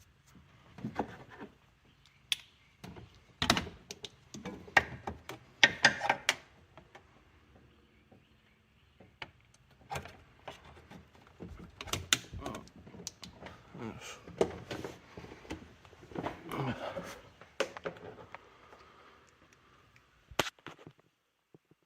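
Scattered clicks, knocks and clinks of hand tools and parts being handled, some coming in short clusters.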